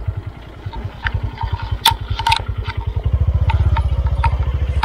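Small motorcycle engine running under load, working harder and louder about three seconds in, with scattered sharp clacks and knocks over it.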